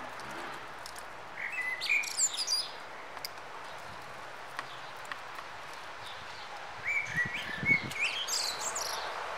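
Dunnock singing two short, fast, high-pitched warbling phrases, one about a second and a half in and another about five seconds later, over a faint steady outdoor hiss.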